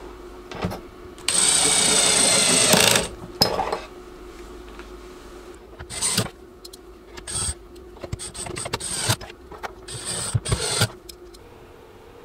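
DeWalt cordless drill/driver with a long driver bit running screws into a powered mixer's back panel: one run of about a second and a half, then several short bursts, with clicks and knocks of the bit and screws in between.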